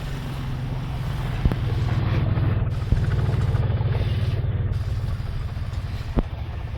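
An engine running, its steady low hum growing louder about two seconds in and easing off toward the end, with a few sharp clicks.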